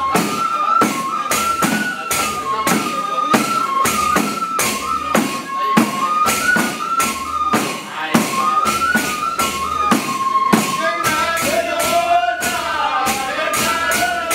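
Traditional Hadrami devotional song: men's voices singing a stepping melody over hand-held frame drums beaten in a steady, even rhythm.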